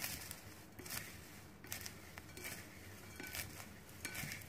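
Dry shredded sweet potato, carrot, glass noodles and tofu being tossed with a spoon in a ceramic bowl: soft rustling swishes about once a second, with light clicks of the utensil.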